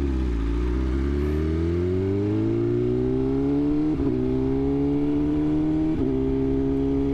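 BMW sportbike's inline-four engine pulling away from low speed: the engine note dips briefly, then rises steadily as the bike accelerates. Quick upshifts break it about 4 and 6 seconds in, and it then holds a steady cruise.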